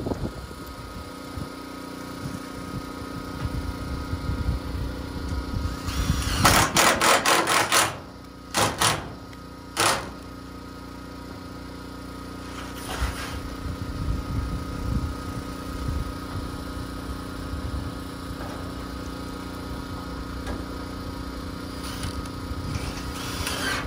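Cordless impact driver driving screws through corrugated metal roofing, in short bursts of rapid clattering hammering: a long one about six seconds in, two brief ones soon after, and another just before the end. A steady mechanical hum runs underneath.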